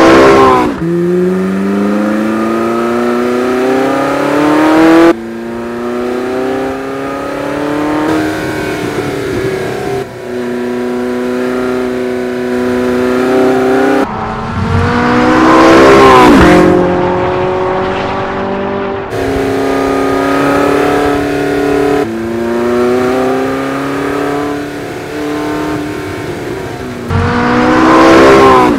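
Porsche 918 Spyder's V8 engine at speed on a race track, its note rising in long pulls under acceleration. The car passes by three times, the pitch dropping as it goes past: at the start, in the middle and near the end. The sound jumps abruptly several times between passes.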